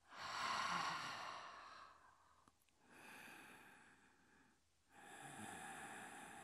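A woman breathing slowly and deeply during yoga practice. There is one long, fairly loud breath over the first two seconds, then two softer breaths.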